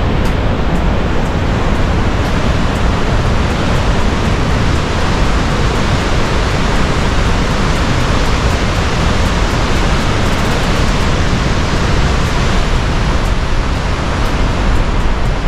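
Steady, loud rushing of a 90-foot waterfall carrying a lot of water, an even wash of falling water that does not let up.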